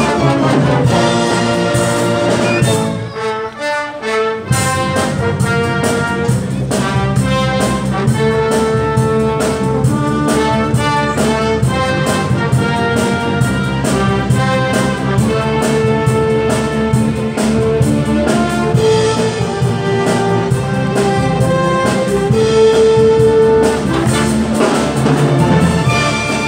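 Symphony orchestra playing, with violins and other strings in the full ensemble. The sound thins out briefly about three seconds in, then the whole orchestra comes back in.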